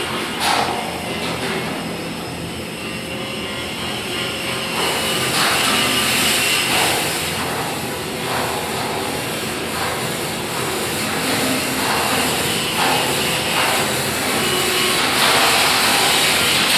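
Steady machine noise with a strong hiss, louder from about five seconds in, with a few irregular knocks.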